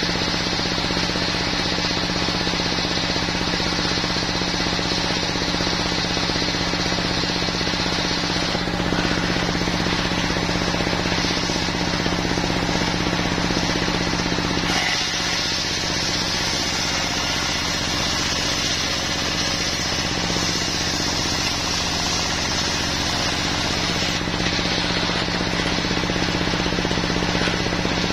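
Horizontal single-cylinder diesel engine running steadily, driving the large circular saw blade of a portable sawmill. The tone shifts slightly about halfway through.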